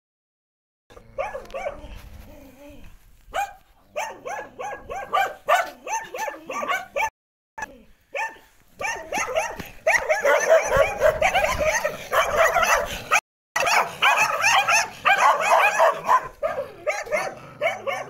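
Several dogs barking in quick, repeated barks. The barking starts about a second in and grows louder and denser about halfway through, with two or more dogs barking over each other.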